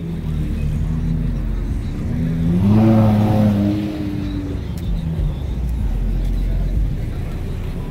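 Car engines driving past at low speed, with a steady low rumble. One car accelerates by about three seconds in, its engine note rising to a peak and then falling away.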